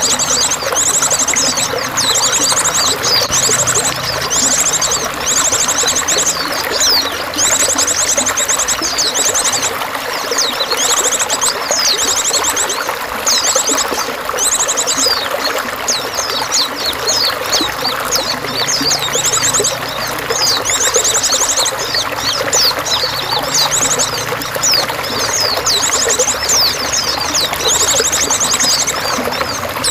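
Steady pouring, trickling water with small songbirds calling over it: short, very high buzzy trills repeating about once a second, mixed with quick chirps.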